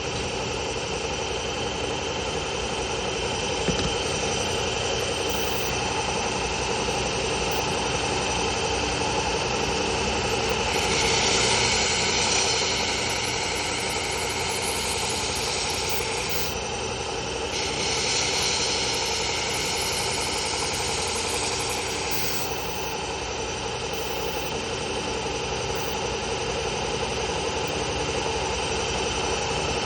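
1x30 belt sander running steadily with a 120-grit Cubitron belt. Twice, from about 11 s and again from about 18 s, a louder hissing grind comes in for roughly five seconds as a steel garden-shear blade is pressed to the belt for sharpening.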